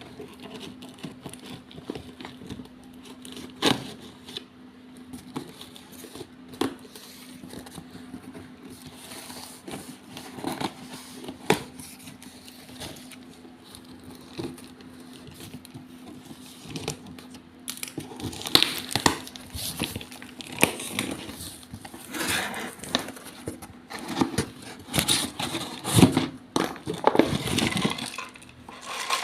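Plastic parcel wrapping being crinkled and torn open by hand: scattered rustles, crackles and snaps, sparse at first and busier and louder in the second half. A faint steady hum runs underneath.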